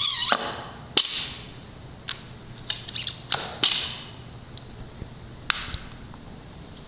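Weight plates slid onto a steel barbell sleeve and handled: a series of sharp clanks and knocks, about eight over several seconds, several with a brief metallic ring.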